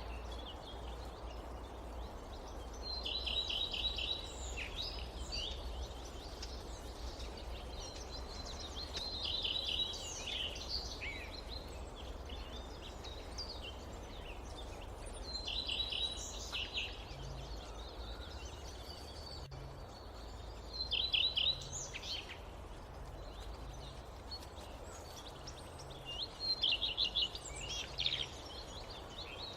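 A songbird singing a short phrase of quick repeated notes about every six seconds, five times, over a steady low rumble of forest ambience.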